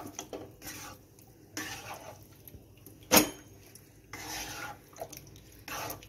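A spatula and a hand turning marinated chicken pieces in a nonstick kadai, scraping and clattering against the pan in short bouts, with one sharp knock of the utensil on the pan about three seconds in.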